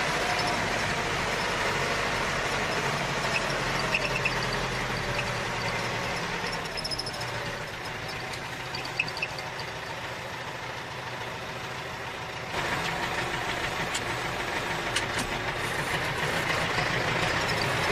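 A tractor engine running steadily, growing louder with a sudden step about twelve and a half seconds in.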